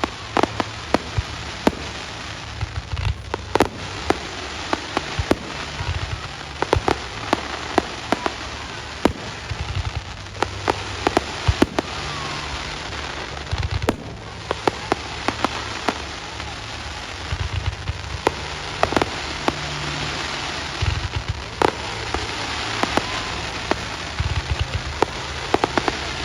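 Fireworks display going off in rapid succession: many sharp bangs and pops over a continuous crackling hiss, with low rumbling booms. The crackle thickens toward the end.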